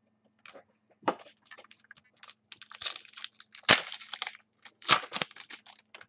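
Plastic wrapper of a football trading card pack being torn open and crinkled: a run of crackling rustles, with the sharpest crackle a little past halfway and another about five seconds in.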